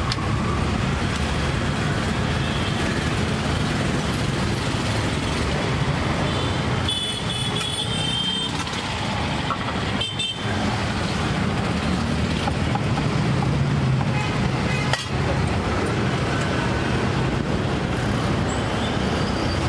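Steady low rumble of road traffic, with brief high ringing tones about seven seconds in and again about ten seconds in.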